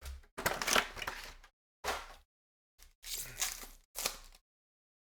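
Crinkling, tearing plastic and paper packaging as a sealed box of trading cards is opened. It comes as a handful of short noisy crackles that stop about four and a half seconds in.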